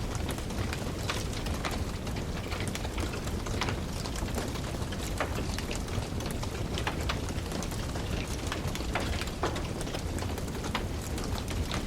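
Wood fire in a fireplace crackling steadily: frequent small sharp pops and snaps over an even hiss of burning.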